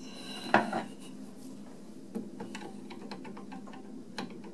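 A sharp knock and clatter about half a second in, then a scattered run of light clicks and taps as small metal parts and hand tools are handled on a workbench.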